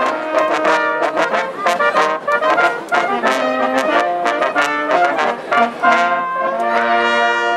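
Brass band playing a tune of quick, short notes, settling on a held chord near the end.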